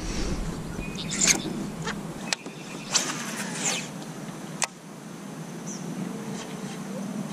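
A few sharp clicks and knocks of gear handled on a plastic kayak, over a low steady background hiss.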